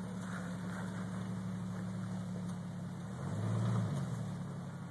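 Jeep Cherokee XJ engine running at low revs while the Jeep crawls over rocks, with a brief rise in throttle about three seconds in.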